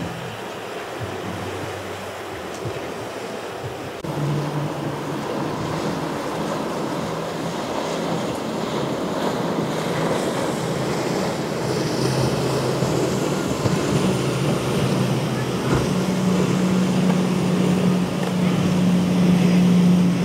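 Outboard-powered motorboat running fast through choppy water: a steady rush of wake and surf with wind on the microphone, and the outboard engine's steady drone growing louder over the last few seconds.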